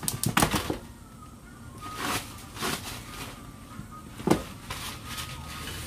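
Scattered light knocks and clatter of kitchen items being handled, with a sharper knock about four seconds in.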